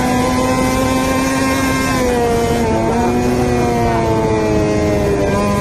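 Yamaha NMax scooter's single-cylinder engine running while riding, with wind rushing over the microphone. The engine note drops about two seconds in and falls again from about four seconds in.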